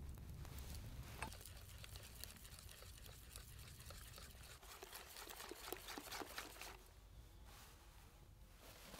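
Wire whisk beating crêpe batter in a glass bowl, with many quick, light clicks of the wires against the glass. For about the first second there is a soft sizzle of butter being browned in a small saucepan.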